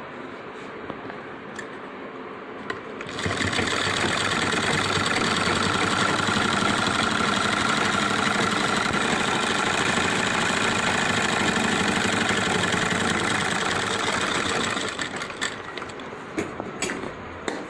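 Sewing machine stitching a line along the edge of a shirt's front placket. It starts about three seconds in, runs steadily for about eleven seconds, then stops, followed by a few light clicks.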